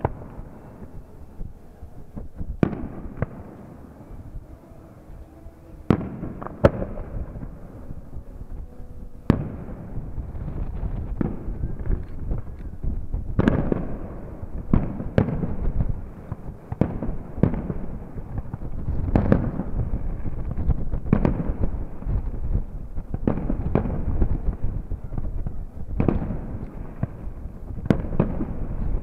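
Aerial firework shells bursting: sharp bangs, each trailed by a long echo. They come a few seconds apart at first, then much faster, several a second at times, from about ten seconds in.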